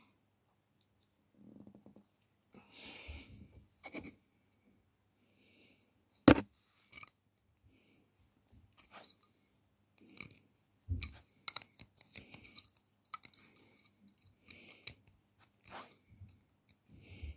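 Handling noises from a cane bassoon reed blank bound with brass wires: scattered small clicks, taps and scrapes, with one sharp click about six seconds in the loudest and another strong one near eleven seconds.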